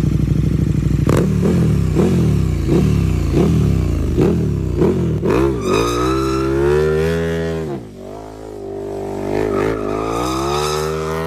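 KTM RC 200's single-cylinder four-stroke engine being revved: a string of quick throttle blips about every half second, then a long high rev that drops back just before eight seconds in and climbs again near the end.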